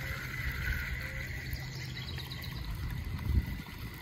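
Outdoor riverbank ambience: a steady high insect trill over a low rumble, with one soft low thump about three-quarters of the way through.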